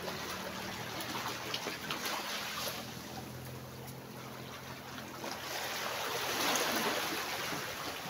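Seawater washing over the stones of a rocky shore, a steady rush that swells to its loudest as a wave comes in about six to seven seconds in.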